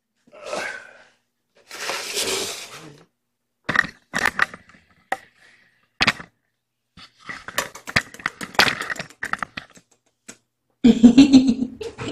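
Crackling and crinkling with scattered sharp clicks and knocks, the sound of objects being handled and moved about. It comes in short irregular bursts, with a louder, denser burst near the end.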